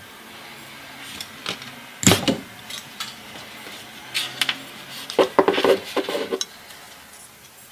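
Clinks and knocks of small hard objects being handled and set down on a work surface: one sharp knock about two seconds in, a few clicks around four seconds, and a burst of rattling clatter from about five to six and a half seconds.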